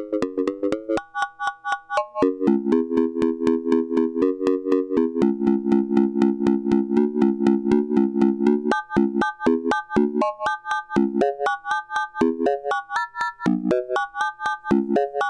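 Buchla modular synthesizer playing a fast pulse-triggered pattern of short notes, about five a second, from a triangle wave and a square wave. A lower and a higher tone step between pitches, changing more often from about eight seconds in.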